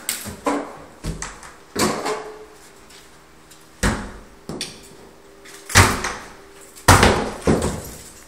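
Irregular loud knocks and bangs of wood, about nine in all, the loudest two close together about six and seven seconds in: workmen handling long wooden boards at a door frame.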